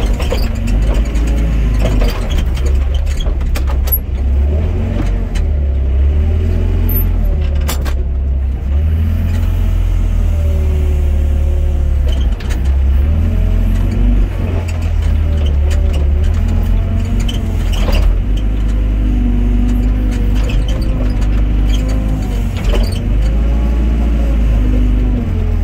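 Excavator's diesel engine running steadily under load, with hydraulic whine rising and falling as the boom and bucket move, heard from the operator's cab. A few sharp knocks are heard during the digging.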